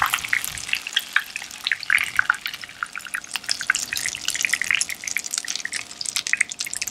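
Hot cooking oil in a frying pan crackling with many small, irregular pops, the fish just lifted out.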